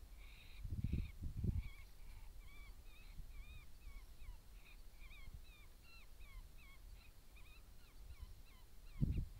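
Coyotes yipping: a rapid run of short, high, wavering yips, about three a second. Two loud low thumps come about a second in and near the end.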